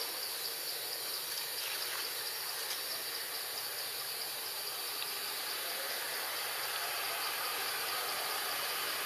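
Steady, high-pitched insect chorus with a fast, even pulse.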